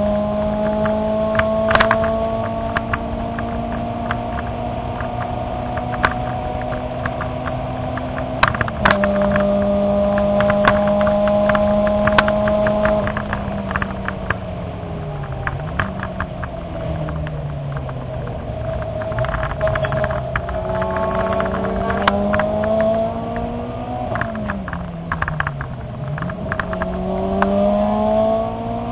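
Car engine heard from inside the cabin on track: the note climbs steadily under acceleration, breaks briefly about eight seconds in, then dips and swoops back up twice as the car brakes and changes down for corners. Sharp clicks and rattles run through it all the way.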